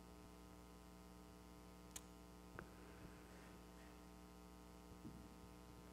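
Near silence: a faint steady electrical mains hum, with two faint clicks about two seconds in.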